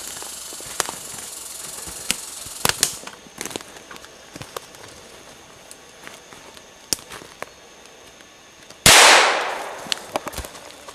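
A single sharp, loud shot from a .22 handgun about nine seconds in, its report dying away over a second or so. Before it there are scattered light clicks and cracks.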